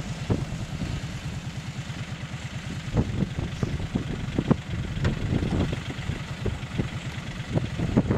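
John Deere 3520 compact tractor's diesel engine running steadily at idle, with irregular clanks and knocks over it.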